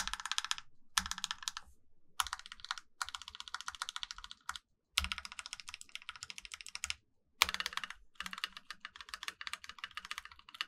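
Stabilized keys of a Rakk PIRAH mechanical keyboard, fitted with lubed stabilizers, lubed and filmed Durock L7 switches and Akko silent PBT keycaps, pressed rapidly in repeated bursts of a second or two with short pauses between. The sound is on the clacky side.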